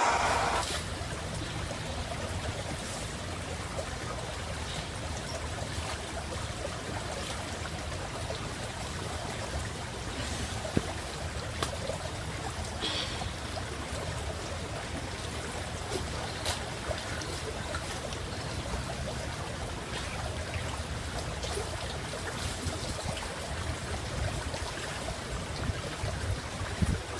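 A stream running steadily, with a few faint clicks.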